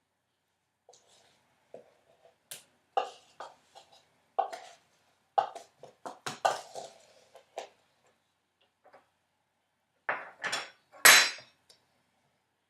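A measuring cup scraping and knocking against a mixing bowl as dry Play-Doh ingredients are scooped and dumped, in a string of short scrapes and clinks. Near the end comes a louder cluster, with one ringing clink that is the loudest sound.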